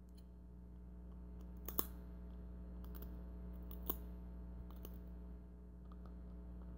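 A person eating Dungeness crab: sharp clicks and small mouth sounds as meat is bitten and sucked from a piece of shell, about four louder clicks roughly a second apart, over a steady low electrical hum.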